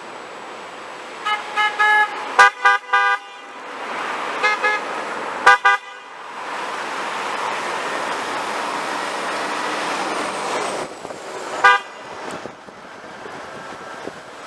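Car horns honking in short toots: a quick run of beeps in the first few seconds, a few more about five seconds in and a single one near the end, over passing traffic that swells in the middle.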